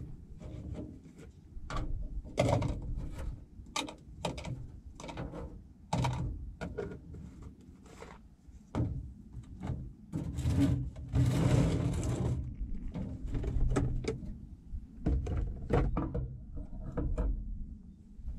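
Hand tools and a plastic socket-set case being handled on a rusty steel deck plate: irregular clicks, clinks and knocks, with a longer scraping rush about eleven seconds in.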